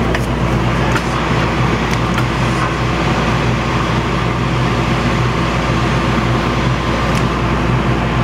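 Powder coating spray booth's exhaust fan running steadily with a low motor hum, mixed with the hiss of compressed air from the powder gun as it sprays powder into the booth.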